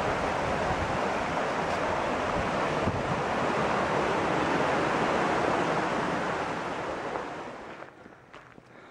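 Rushing creek water tumbling over rocks below a footbridge: a steady, full whitewater rush that drops away abruptly about eight seconds in.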